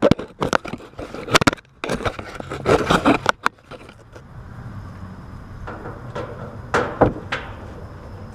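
Clicks, knocks and scrapes of hands working an air conditioner's outdoor electrical disconnect box, likely pulling the disconnect, dense for the first few seconds, then one more knock near the end over a steady low background.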